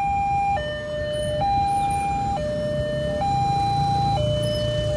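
Railway level-crossing warning alarm sounding an electronic high–low two-tone, each tone held about a second in turn, signalling that the automatic barrier is closing for an approaching train.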